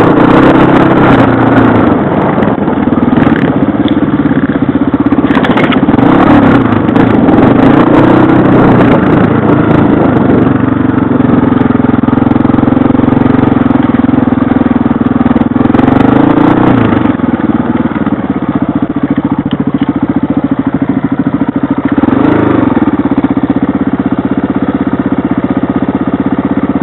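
Dirt bike engine running under way through scrub, its revs rising and falling several times, with scattered clicks and scrapes.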